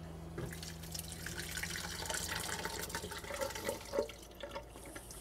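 Curds and whey poured from a pot into a cheesecloth-lined colander in a sink, the whey splashing and draining through the cloth. A few light knocks of the pot come near the end.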